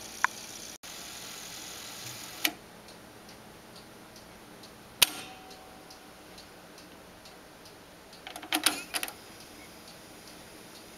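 Sharp mechanical clicks and clunks from a cassette player's keys and mechanism. A steady hum stops with a click about two and a half seconds in, a single clack rings briefly halfway through, and a quick run of clicks comes near the end, over faint regular ticking.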